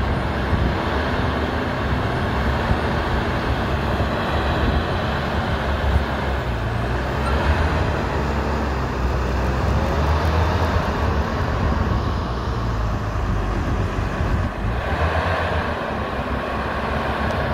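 Diesel engine of a 2004 Trans-Gesco TG475 tracked feller buncher running steadily, with a continuous low engine hum.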